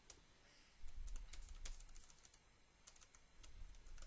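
Computer keyboard keys being tapped in short, irregular runs of faint clicks as characters in a line of text are deleted and retyped.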